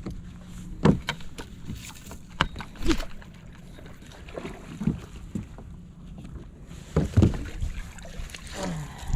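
Wind rumbling on the microphone aboard a fishing boat, with several hard knocks and bumps on the boat. The loudest come about a second in and a pair come about seven seconds in.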